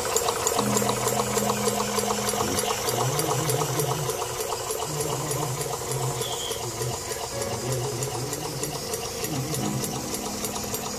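Homemade miniature steam engine running, its cylinders and crank linkage clicking in a rapid, even rhythm over a hiss of steam.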